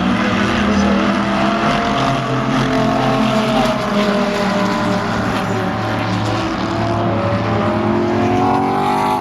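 Several GT race car engines running together, their pitch wavering up and down, with one revving higher near the end before the sound cuts off abruptly.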